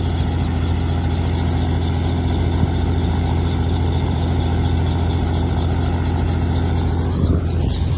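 Light two-blade helicopter running close by, its engine and main rotor making a loud, steady low hum with a rapid, even beat.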